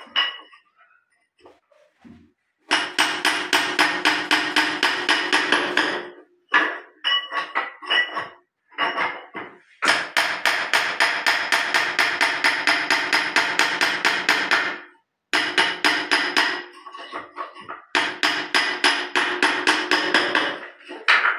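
Hammer tapping a steel chisel in quick runs of ringing blows, about six a second, with short breaks between runs. It is chipping hardened cement out of the outlet of a ceramic Indian squat toilet pan, where the set cement has blocked the trap.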